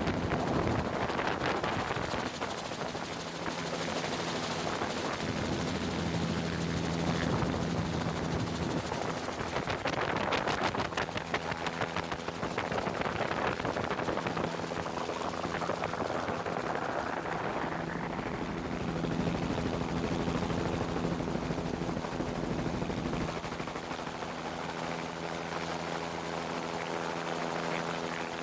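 Aircraft in flight, heard from on board: a steady engine drone with rushing air noise.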